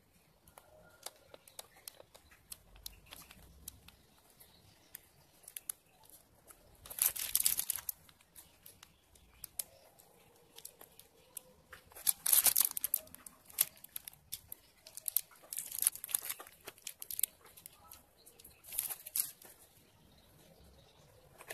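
Plastic piping bag crinkling as it is squeezed, pushing whipped cream out through the nozzle in several separate bursts, with small clicks and rustles between.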